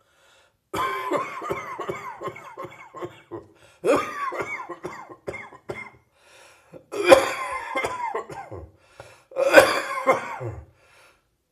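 A person's lingering morning cough: four bouts of coughing, each a string of quick hacking coughs, with short pauses between them; the last two bouts are the loudest.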